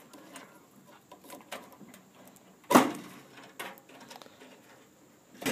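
Faint clicks and handling noise as push-on wire connectors are worked off the terminals inside an opened microwave, with one sharp, louder knock a little under three seconds in.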